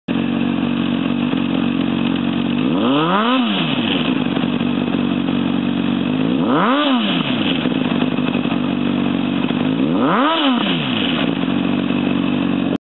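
2006 Honda CBR600RR inline-four with a Scorpion titanium slip-on exhaust idling, blipped three times with short throttle revs about three and a half seconds apart, each rising and dropping straight back to idle.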